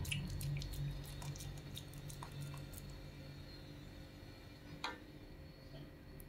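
Soft wet clicks and squishes of bakso meat paste squeezed through a fist and scooped off with a metal spoon, rapid over the first three seconds, then sparser, with one sharper click just before five seconds.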